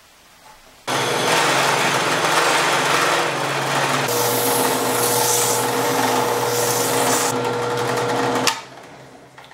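Drill press motor switched on about a second in, running loud and steady with a hum and hiss while it spins a cast resin piston blank in a homemade PVC collet. From about four seconds in the sound turns harsher as a tool shaves the face of the spinning blank. The motor is switched off near the end and coasts down.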